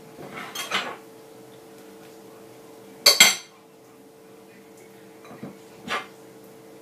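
Table knife clinking and scraping against a ceramic plate while dates are sliced and pitted, with one sharp clatter about three seconds in and two lighter taps near the end.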